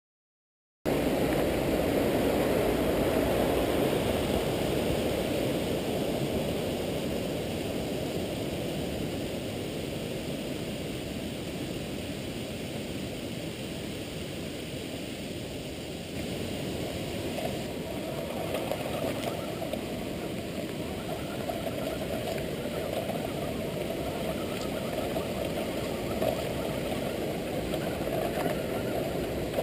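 Tamiya Midnight Pumpkin, a stock 2WD electric RC monster truck, driving over grass and dirt: a steady rushing noise of motor, gears and tyres. It is loudest just after it starts, eases off, and picks up again a little past halfway.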